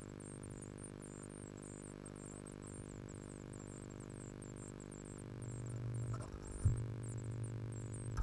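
Blue tit nestlings begging with thin, high cheeps a few times a second, over a steady electrical hum. There is a sharp knock about six and a half seconds in and another near the end.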